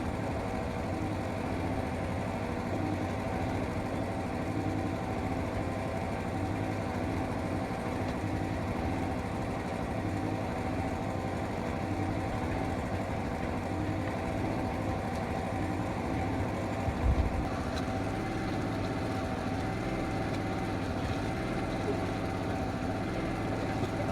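A small engine or motor running steadily at a constant pitch, with a brief low thump about seventeen seconds in.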